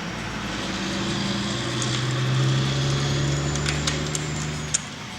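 An engine running in the background, a low steady hum that swells to its loudest in the middle and fades out near the end, with a few light clicks.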